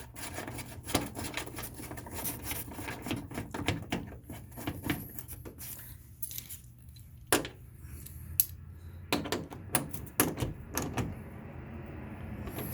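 Irregular metallic clicks, clinks and rattles of small parts and hand tools being handled inside a car door, with a sharper click about seven seconds in.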